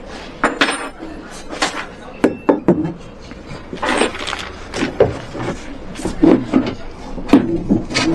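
Irregular knocks, taps and clatter of hard objects being handled and set down, a dozen or more in about eight seconds.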